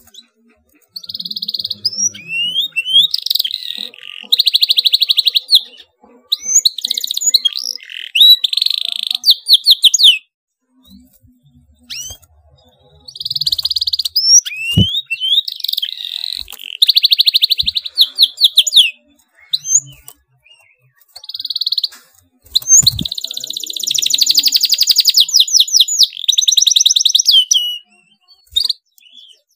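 Domestic canary singing in vigorous, energetic song, in three long bouts with short pauses between them. Each bout is packed with tight, fast rolls of rapidly repeated notes and quick rising whistles.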